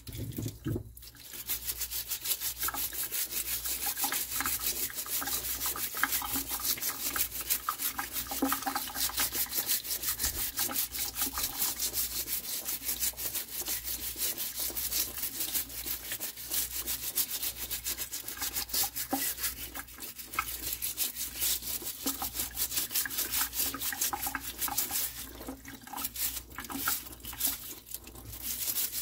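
A stiff nylon dish brush scrubbing knobbly Jerusalem artichoke tubers clean: rapid, scratchy back-and-forth strokes with a few short pauses.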